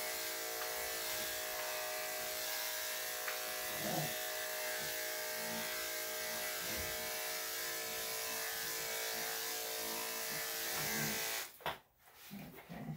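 Corded electric dog-grooming clipper running with a steady buzzing hum while clipping the hair on a Maltese's head, then switched off abruptly about a second before the end; a few soft knocks follow.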